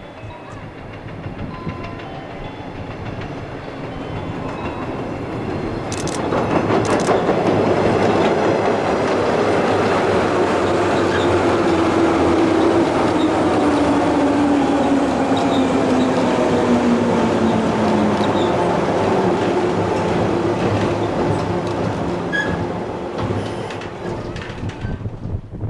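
JR 103-series electric commuter train approaching and running past close by, its rumble building up, wheels clattering over rail joints. A low tone slides down in pitch around the middle of the pass, and the sound fades near the end.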